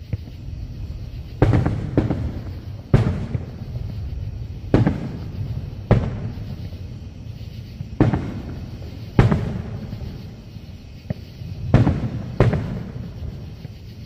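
Aerial firework shells bursting one after another: about ten sharp booms at uneven intervals, each trailing off in a low rumble.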